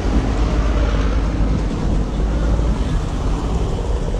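Wind buffeting a phone's microphone outdoors: a steady, loud rumble with a hiss above it and no distinct events.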